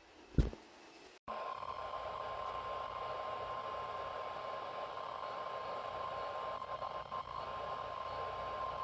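A sharp pop about half a second in, then radio hiss comes up carrying one steady alarm tone a little above 1 kHz, held for about eight seconds. It is the NOAA Weather Radio 1050 Hz warning alarm tone, which signals that a warning is about to be broadcast.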